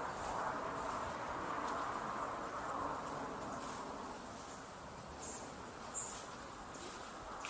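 Insects buzzing in a steady chorus that eases off after about three seconds, with faint scattered clicks.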